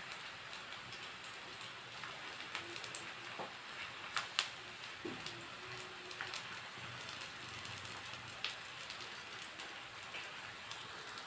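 Nendran plantain slices sizzling faintly in hot ghee in a frying pan, with sharp taps and scrapes of a spatula as the slices are turned over, the loudest taps about four seconds in.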